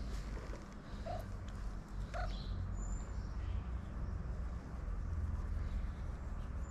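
Tabby cat giving two brief, soft calls about a second and two seconds in while it is stroked, over a steady low rumble.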